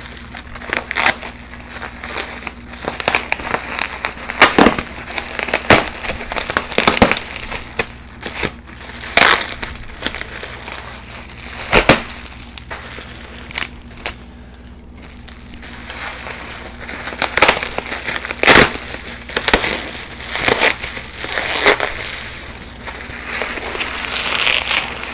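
Bubble wrap and plastic packaging crinkling and rustling as it is pulled off by hand, with scattered sharp crackles. A steady low hum lies under it.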